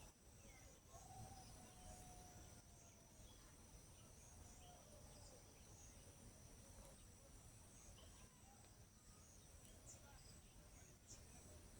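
Faint outdoor ambience: a steady high-pitched insect trill with scattered faint bird chirps and a soft whistle about a second in.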